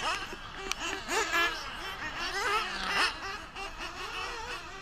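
Several 1/8-scale nitro buggies' small two-stroke nitro engines revving up and down as they race, their pitches rising and falling over one another, with one falling sharply as a buggy passes about three seconds in. A sharp knock comes under a second in.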